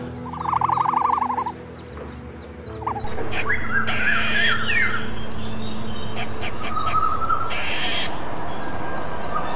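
High chirping calls: a rapid pulsed trill about a second long near the start, then, after an abrupt change about three seconds in, short chirps and falling whistles over a steady hiss.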